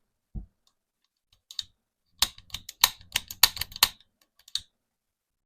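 Light clicks and taps of small hard parts being handled while working on an AR-15 lower: a soft knock just after the start, then a quick run of about a dozen sharp clicks over a couple of seconds, and a last click or two shortly after.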